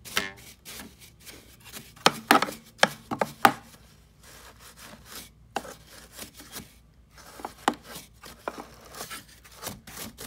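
A paintbrush's bristles scrubbing dust off the plastic housing of an upright vacuum cleaner in quick, irregular strokes, with a busier run of strokes about two seconds in.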